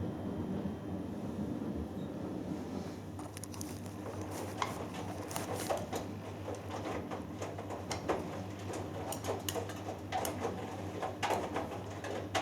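Hoover Dynamic Next front-loading washing machine in the wash phase of a cotton cycle, its drum tumbling a 3 kg load: a steady motor hum, joined about three seconds in by irregular sloshing and patter of wet laundry and water falling inside the drum.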